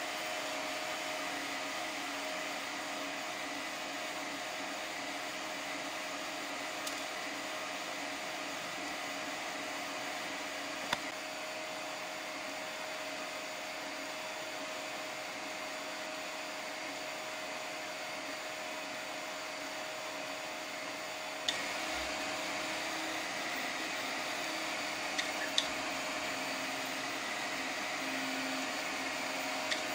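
3D printer running mid-print: a steady whir from its fans and stepper motors as the print head travels, with a few faint ticks.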